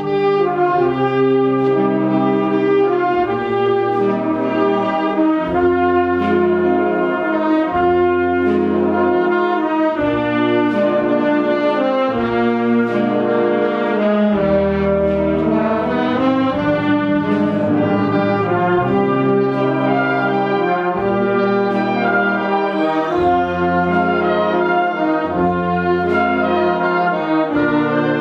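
Concert wind band playing, brass prominent, over a bass line that moves every second or two.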